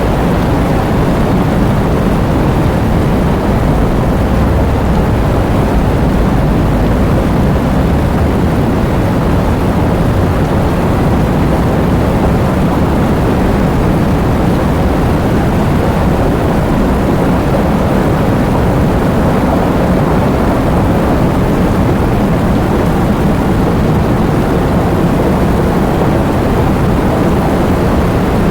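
Heavy rain pouring steadily: a dense, even rush of water with a deep low rumble and no distinct drops or pauses.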